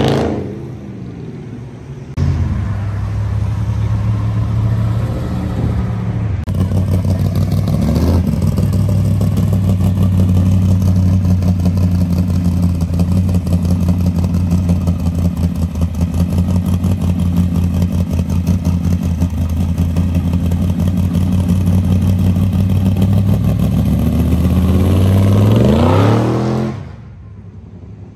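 Classic Plymouth 'Cuda's V8 idling with a loud, lumpy exhaust pulse for over twenty seconds, then revving up and pulling away near the end. In the first second another car's engine fades off as it drives away.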